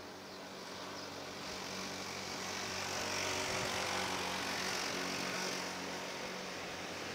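Passing road traffic: a motor vehicle's engine and tyre noise build from about a second in, then ease slightly near the end.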